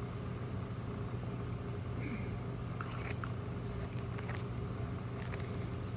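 Plastic packaging being handled: light crinkling with a few short crackles and clicks from about halfway through, over a steady low hum.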